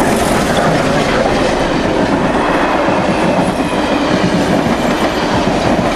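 Passenger train hauled by the C38-class steam locomotive 3801 rolling past close by: first the locomotive's side and tender, then the carriages going by in a loud, steady rumble of wheels on rail.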